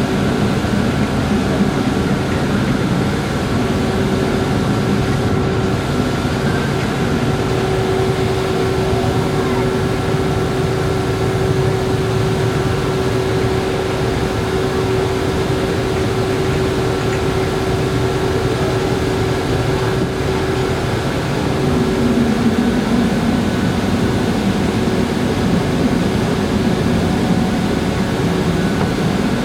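Large car ferry's engines and propulsion running in a steady drone with a held hum as the ship gets under way. A lower, wavering tone joins about two-thirds of the way through.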